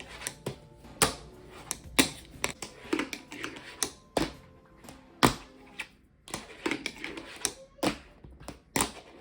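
Irregular sharp clicks and clacks of a hard object striking a hard surface, some in quick clusters and others a second or more apart.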